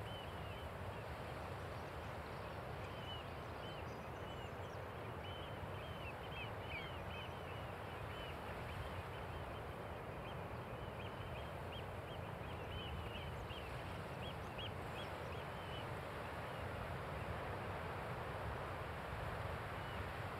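Steady wind noise, with a run of short, high, arching bird calls over it from about three seconds in until about two-thirds of the way through.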